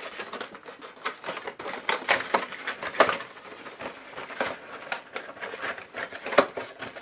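Packaging being handled and opened: plastic wrapping crinkling and a cardboard box being turned and pulled at, irregular rustles and clicks with a sharper snap about three seconds in and another near the end.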